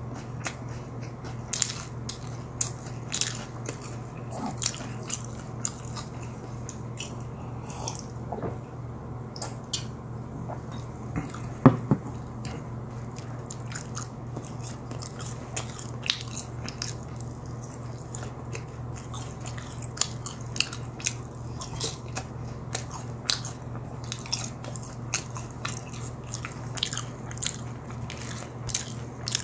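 Close-miked eating: many crisp crunches and chewing of BHC Bburinkle boneless fried chicken and seasoned fries, the loudest crunch about twelve seconds in, over a steady low hum.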